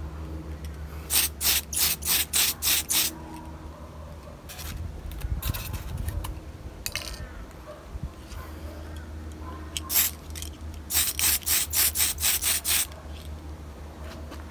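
Aerosol spray can of Tamiya paint spraying a coat onto a plastic model truck cab in short hissing puffs. There is a quick run of about six puffs, a few single puffs, then another run of about eight.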